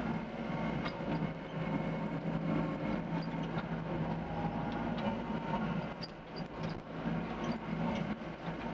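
Doosan DX55 mini excavator running steadily while it digs: its diesel engine hums, with scattered light knocks.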